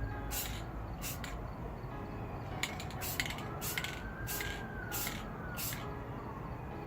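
Repeated short bursts of spray hissing, about seven in all, as the engine parts are sprayed. A distant siren rises and falls faintly in the background during the second half.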